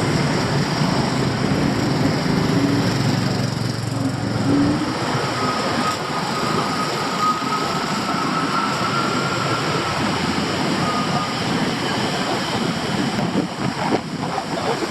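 Bangkok street traffic: a steady wash of passing vehicles. A small engine hums and climbs slightly in pitch over the first few seconds, and a thin high whine holds for about six seconds in the middle.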